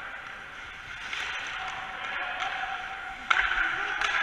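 Ice hockey practice on an indoor rink: skates scraping the ice and the clack of sticks on pucks, with a sharp knock of a puck a little over three seconds in over a steady hum.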